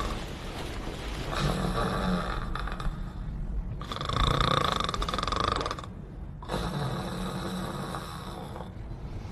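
A person snoring: three long snores of about two seconds each, with short pauses between them.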